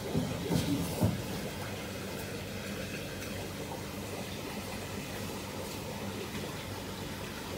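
Steady water noise from a shrimp larvae tank with a low hum beneath it, and a few short bumps in the first second.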